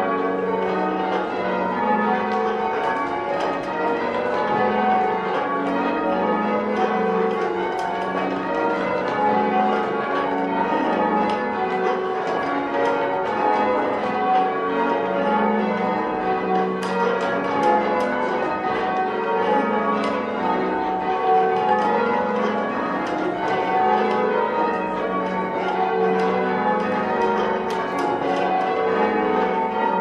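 Church tower bells in change ringing: a full-circle peal of several bells struck one after another in a steady, even rhythm, their tones overlapping, heard from the ringing chamber beneath them.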